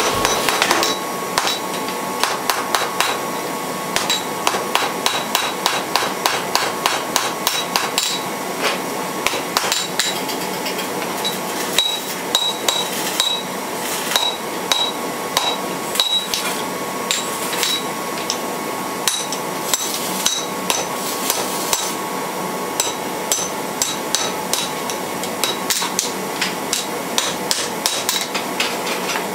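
Hand hammer striking red-hot steel on an anvil in a quick, steady rhythm of blows, shaping a forged decorative leaf; many strokes are followed by a short high ring from the anvil.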